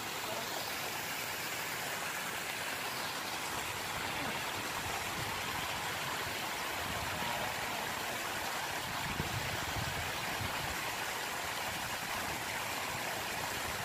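Steady, even outdoor hiss with no distinct event standing out.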